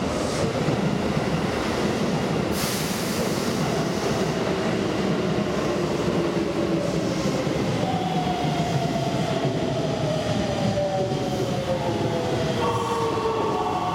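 An electric commuter train pulling in on the next track: continuous rail and wheel rumble, a brief hiss about two and a half seconds in, and the motor whine gliding down in pitch over the last several seconds as it brakes to a stop, with a steady higher tone starting near the end.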